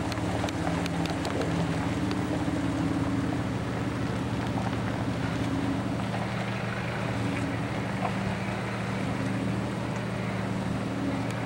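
Four-wheel-drive vehicle engine running steadily at a low idle, a low hum that doesn't rise or fall, over a haze of wind and rumble noise.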